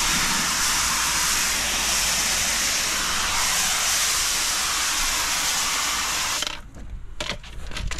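Pressure-washer spray hissing steadily as the jet rinses paving, cutting off sharply about six and a half seconds in when the spray stops. A few short clicks and knocks follow near the end.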